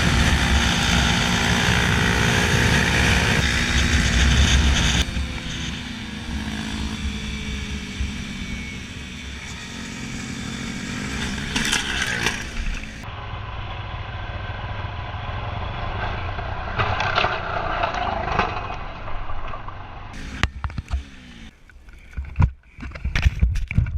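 A motorcycle running under way, heard with wind noise on the microphone, broken by abrupt changes in sound between shots. A few sharp knocks come near the end.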